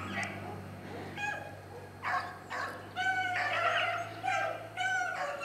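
A pack of rabbit-hunting dogs baying as they run a rabbit's trail and close in on it. Several drawn-out calls overlap, the baying thickening about halfway through, over a steady low hum.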